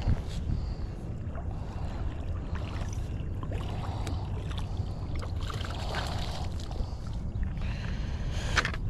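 Wind rumbling on the microphone, with splashing and scuffling as a hooked catfish is pulled through the shallow edge of a pond and dragged onto the grass.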